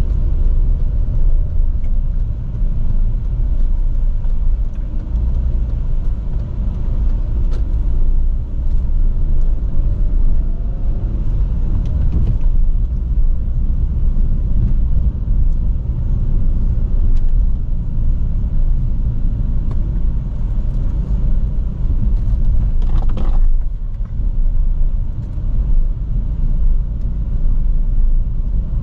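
Small sports car driving: a steady low rumble of its engine and exhaust, loud, with road noise. Faint engine tones shift in pitch in the first half, and there is a brief burst of noise late on.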